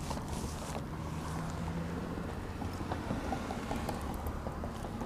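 Steady low outdoor rumble, with a faint low hum that shows for a couple of seconds and a few light ticks in the second half.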